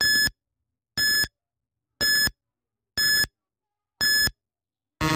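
Quiz countdown-timer sound effect: five short electronic beeps, one a second, ticking off the last seconds. Near the end a longer, deeper buzz tone starts, marking time up.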